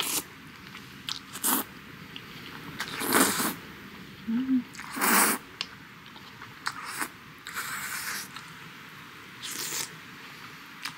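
A person slurping thick jajangmyeon (black-bean-sauce) noodles: a series of loud slurps, one about every two seconds, as long strands are sucked into the mouth.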